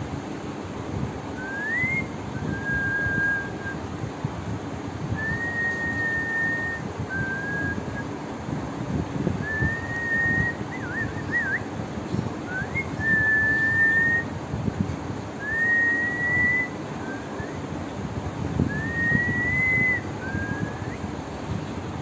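Drowsy Indian ringneck parrot whistling a repeated phrase of clear notes. Each phrase is a short rising glide followed by a held, steady note, recurring every three to four seconds, with a brief warbling run about halfway through.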